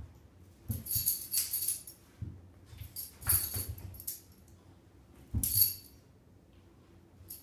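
A Boston terrier and a kitten play-wrestling on a blanket: scuffling, rustling and a bright jingling, in three bursts with short pauses between.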